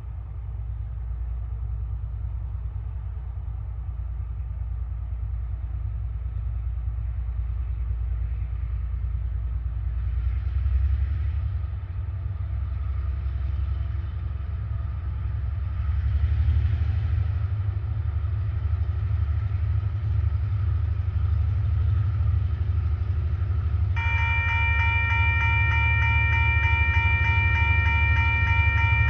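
TasRail diesel locomotive TR07 approaching with a low, steady rumble that slowly grows louder. About 24 seconds in its multi-tone horn starts sounding and holds on as one long chord.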